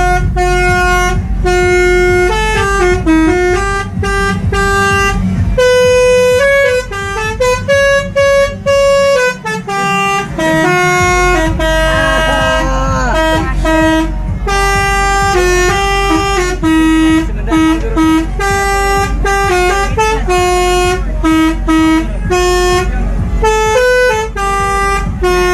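Telolet multi-tone horn playing a tune: a quick run of held notes stepping from pitch to pitch, over a steady low rumble.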